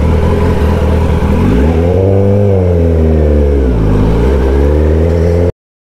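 Kawasaki ZX-10R's inline-four through an SC Project aftermarket exhaust, running loud. The revs climb, hold, drop back and rise again. The sound cuts off suddenly about five and a half seconds in.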